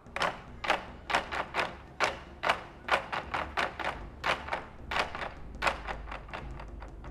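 Taiko drums struck in a steady beat, sharp hits about three a second that grow fainter near the end.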